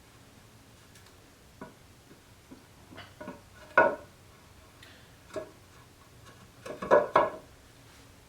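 Wooden pieces of a half-lapped table base knocking and clunking together as they are handled and lined up. A few irregular knocks, the loudest about four seconds in, and a quick cluster of knocks near the end.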